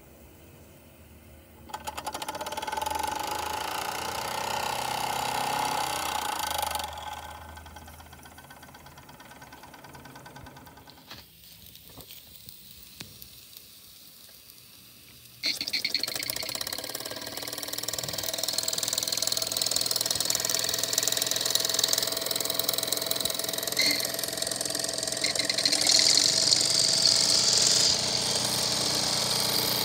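Mamod model live-steam traction engine running: its small single oscillating-cylinder steam engine chuffs rapidly with a hiss of steam. It starts about two seconds in, falls away near seven seconds, and cuts back in suddenly about halfway, louder and hissier.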